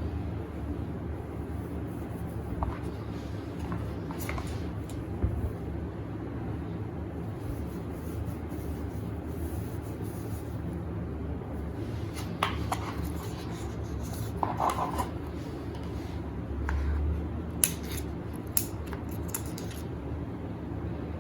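Scattered small clicks and light handling noises over a steady low background rumble.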